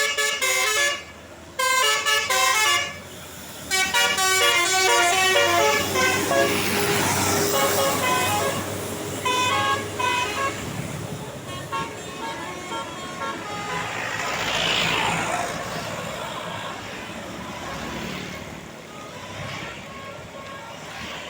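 Bus 'telolet' multi-tone musical horn playing quick stepped tunes in several bursts over the first ten seconds or so, followed by the running noise of the bus passing, which slowly fades.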